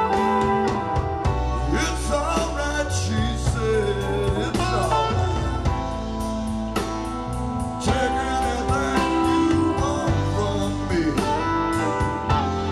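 Live rock band playing: guitar lines with bending notes over bass and drums.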